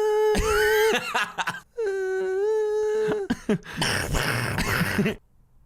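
A man's voice making a silly vocal sound effect: two steady, held high notes of about a second each. Then comes a second of breathy, rasping noise that cuts off suddenly.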